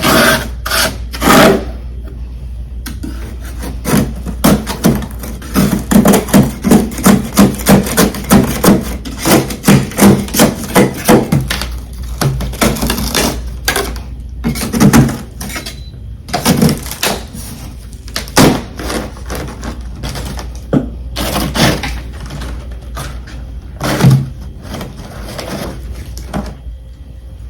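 Freezer frost crunched and chewed close to the microphone: a run of quick crunchy chews about two a second, then slower, scattered crunches.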